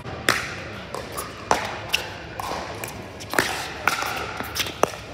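Pickleball paddles striking a hard plastic ball during a rally: about eight sharp pops, irregularly spaced, echoing in a large indoor hall.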